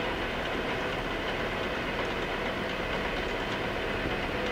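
Dahlih DL-V1600 milling machine's power cross feed running, a steady mechanical hum from the feed drive as the table travels.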